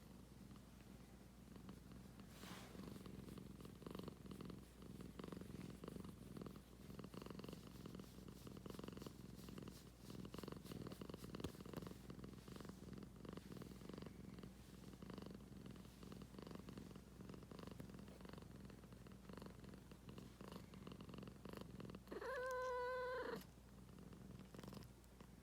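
Pet cat purring steadily, a fine crackly purr likened to burning firewood. It gives one short meow near the end.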